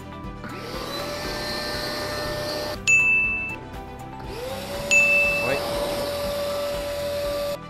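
Vacmaster VQ1220PF 1250 W wet/dry vacuum motor spinning up with a rising whine and running steadily. It cuts off about three seconds in, then starts up again and runs on, stopping just before the end. A bright ding chime sounds twice, at the cut-off and soon after the restart.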